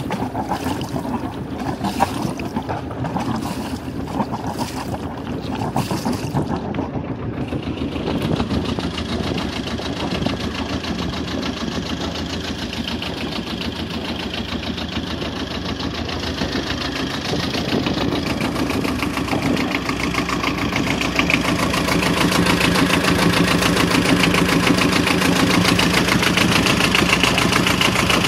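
A wooden motorboat under way: water rushes and splashes along the hull, with regular slaps about once a second at first, over the steady running of its Beta Marine 14 diesel. In the last several seconds the diesel becomes louder and dominates.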